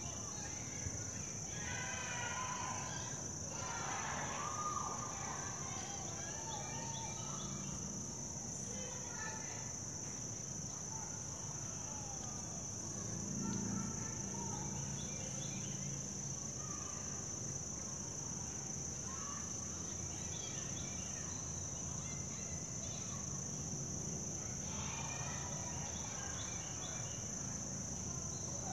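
Outdoor summer insect chorus: a steady high-pitched drone of crickets or similar insects, with birds chirping now and then, loudest a few seconds in and near the end.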